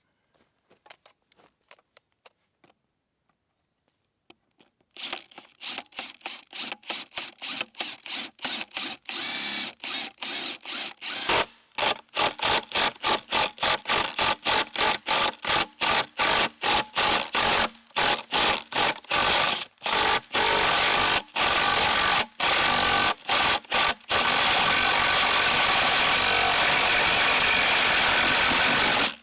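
A power tool worked on bamboo, run in short bursts that come faster and closer together until it runs steadily for the last five seconds or so.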